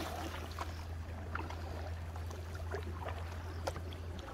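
Kayak paddling on calm water: light splashes and drips from the paddle blades at irregular moments, over a steady low hum.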